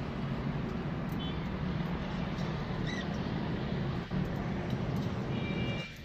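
A steady low rumble with a few brief, faint high chirps from budgerigars: one about a second in, one around three seconds, and a short run near the end.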